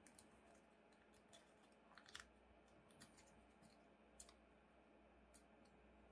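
Near silence, broken by faint, scattered crinkles and ticks of an origami paper sheet being folded and pinched by hand, about once a second with a small cluster about two seconds in.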